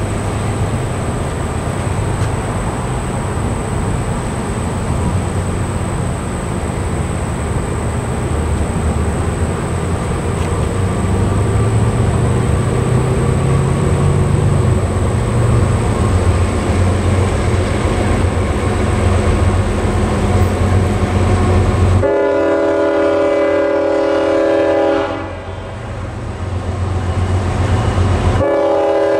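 An approaching freight train's steady roar and rumble, then the lead GE ES44AH locomotive's air horn sounding a multi-note chord about 22 seconds in. The horn holds for about three seconds, fades briefly and sounds again near the end, the opening long blasts of a grade-crossing horn signal.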